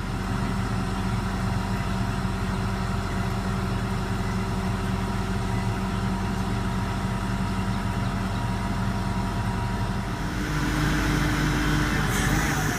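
Link-Belt 8065 rough terrain crane's diesel engine running steadily while the telescopic boom is retracted. About ten seconds in it gets a little louder and a higher whine joins in.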